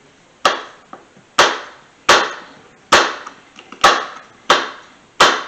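Kitchen knife chopping a jalapeño on a plastic cutting board: seven sharp knocks, roughly one every 0.7 seconds.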